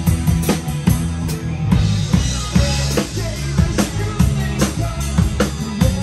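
Live band playing through a PA, with a steady beat on the drum kit under the electric guitar.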